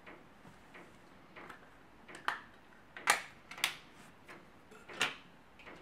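Light plastic clicks and taps as a small power-supply board is worked out of its black plastic housing by hand. There are a handful of scattered clicks, the four sharpest between about two and five seconds in.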